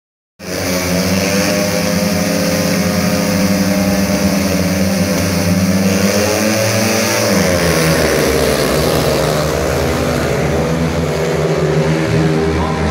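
Four speedway bikes' 500 cc single-cylinder methanol engines revving hard together at the start gate. About seven seconds in the pitch dips and shifts as the bikes launch off the start and race away into the first bend.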